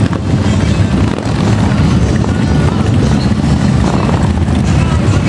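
Motorcycle engines running loud and steady as a line of cruiser bikes rolls past at low speed, one after another.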